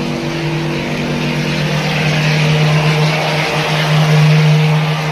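Mechanized plastering machine running: a steady motor hum with a hiss over it.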